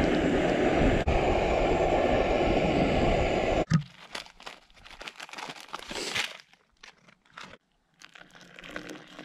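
A loud, steady rushing noise that cuts off abruptly after about three and a half seconds. Then a dog laps water from a bowl in short, irregular splashes, and near the end water is poured from a camping pot into a wooden cup.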